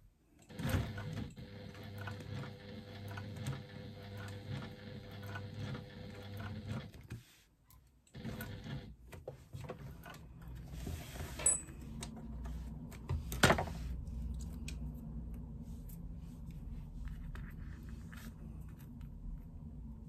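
Electric sewing machine stitching through faux leather, running steadily for about six seconds, pausing briefly, then running again for a few seconds. A single sharp click comes about halfway through, and the rest is quieter handling of the material.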